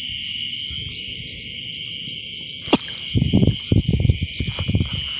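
Steady high chorus of night insects, crickets, from the rice field. About two and a half seconds in comes a sharp click, then a run of loud, low rustling bumps from close handling of the phone as it moves through the grass.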